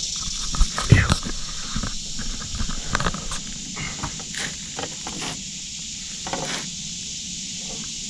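Knocks and scrapes of a landing net and a netted carp being handled against a plastic canoe's hull, loudest about a second in and dying away after about five seconds, over a steady high hiss.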